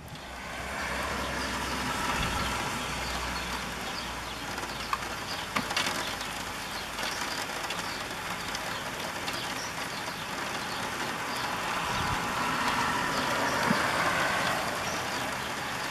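Gusty wind rushing through trees ahead of a storm, swelling and easing, with a low steady hum under it for the first few seconds.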